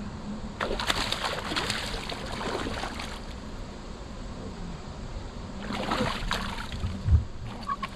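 Water splashing and dripping around a kayak in two bouts, the first about two and a half seconds long and the second shorter, over a steady low hum. A short low thump comes about seven seconds in.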